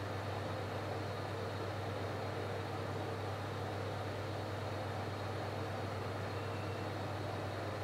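Steady low electrical hum with an even hiss, from kitchen appliances running while pots cook on the stove.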